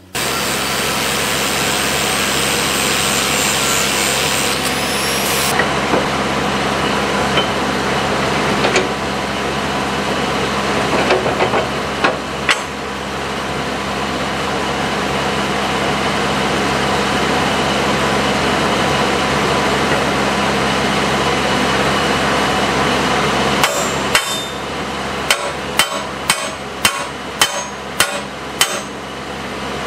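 Angle grinder running steadily, grinding steel on the backhoe thumb's mounting bracket to open up a pin hole that won't line up. Near the end come about eight sharp metal hammer blows, roughly two a second.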